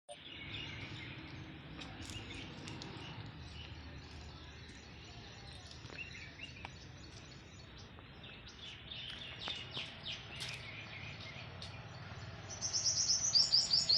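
Small birds chirping in short, high calls, scattered at first, then a fast, loud run of chirps near the end, over a steady low background hum.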